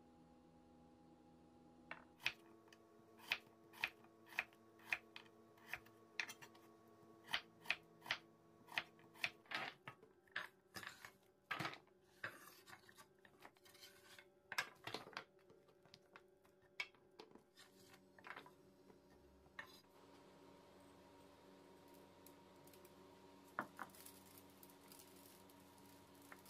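Chef's knife chopping winter radish into thick strips on a wooden cutting board: crisp cuts about two a second, then slower, more irregular cuts that die away after about twenty seconds. A faint steady hum runs underneath.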